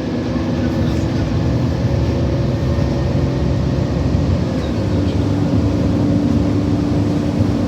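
City transit bus engine and drivetrain running steadily under way, with a hum that steps up to a slightly higher tone about five seconds in.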